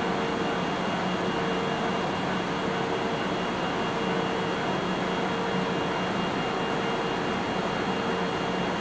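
EF64 electric locomotive standing with its cooling blowers running: a steady whirring hum with a low drone and a mid-pitched tone that drops out briefly a couple of times.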